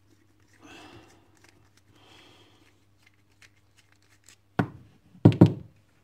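Hands handling a brass padlock and a screwdriver: faint scraping and rustling, then near the end one sharp knock followed by a quick pair of louder knocks with a short ring, as the screwdriver and lock are set down on the work mat.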